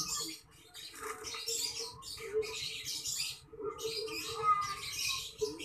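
Hands scooping and pressing loose potting mix around a plant stem in a plastic pot: dry, gritty rustling scrapes in several short bursts.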